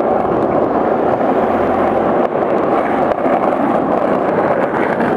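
Hard wheels rolling fast downhill over rough asphalt, a loud, steady grinding rumble.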